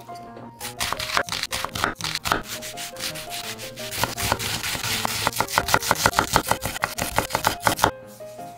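Repeated rubbing and scraping strokes of food being prepared by hand. About halfway they settle into a quick, even rhythm of several strokes a second, then stop abruptly near the end. Soft background music plays underneath.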